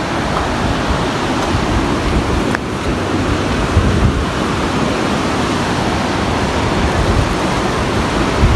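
Rushing mountain river, a steady roar of white water over rocks, with wind buffeting the microphone.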